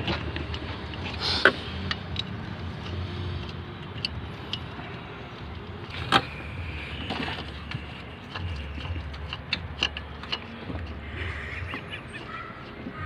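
Hand tools working on engine parts: scattered metallic clicks and knocks, with two sharp knocks about a second and a half in and about six seconds in, over a steady low hum.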